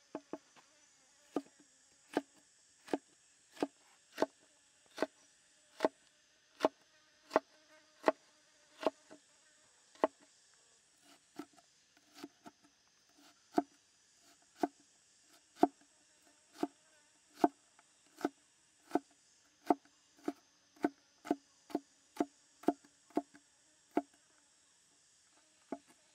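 Large chef's knife dicing green bell pepper on a wooden chopping board: single, even chops about one to two a second, each a sharp knock with a short woody ring, coming slightly faster in the second half. Under them runs a steady high insect buzz.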